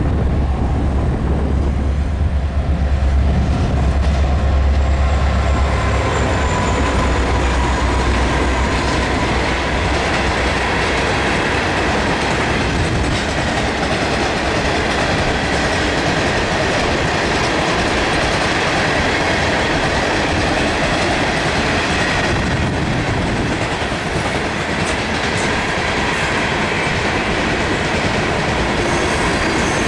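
BNSF freight train passing close by: the diesel locomotives' low engine rumble in the first few seconds, then a long string of ore cars rolling past, their wheels clattering over the rails with faint thin squeals.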